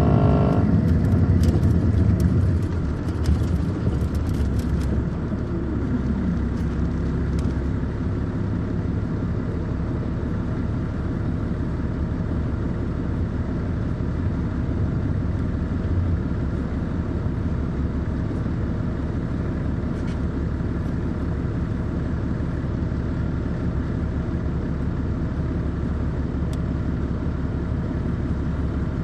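Caterpillar C13 ACERT diesel engine of a 2006 MCI D4500CL coach, heard from inside the bus. It eases off from a louder pull about two seconds in, then runs steadily, with a few light clicks and rattles in the first few seconds.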